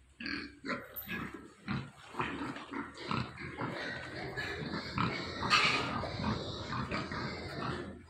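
Several young pigs grunting, many short grunts close together and overlapping, loudest about five and a half seconds in.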